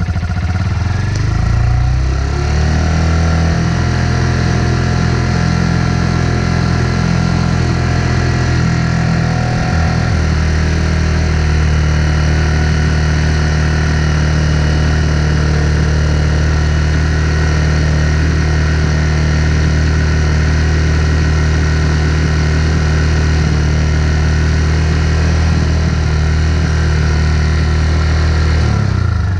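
Motorcycle engine idling just after start-up, running while the stator's AC output is measured. The idle changes pitch a few seconds in and again about ten seconds in, then holds steady until the engine is shut off at the very end.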